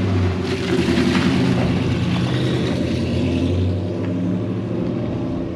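A car engine running at a steady pitch, easing off slightly in loudness over the last second and a half.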